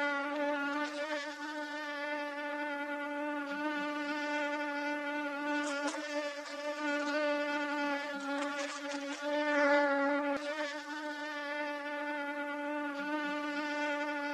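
Mosquito wing whine: a steady, high buzzing hum with many overtones, wavering slightly in pitch and loudness.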